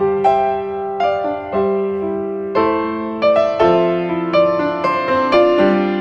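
Background music: gentle piano or electric-piano notes played at an even, unhurried pace.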